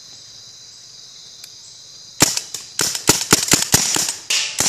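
Paintball gun firing a rapid string of about a dozen shots, several a second, beginning about two seconds in. Crickets chirr steadily underneath.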